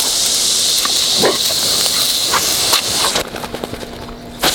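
Garden hose water spray hissing steadily, with a couple of short sounds from a Rough Collie biting at it; the spray cuts out about three seconds in and comes back near the end.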